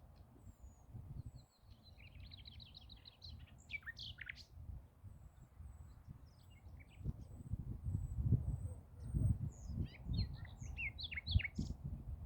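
Forest songbirds chirping and calling. There is a fast trill about two seconds in, sharp chirps near four seconds and a flurry of calls near the end, while a thin high note repeats throughout. Under the birds runs a low rumble that grows louder in the second half.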